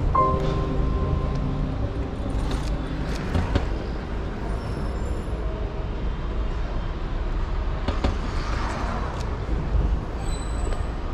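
City street traffic noise: a steady rumble of passing vehicles, with a few faint clicks. The tail of background music fades out in the first second or two.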